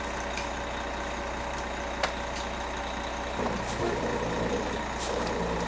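A vehicle's engine running steadily, with one sharp click about two seconds in.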